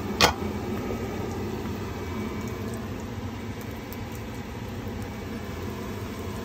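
Steady low rumbling noise, with one sharp click about a quarter of a second in.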